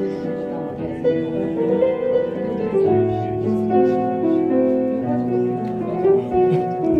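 Piano-led instrumental music playing held chords that change every second or so: the lead-in to a song.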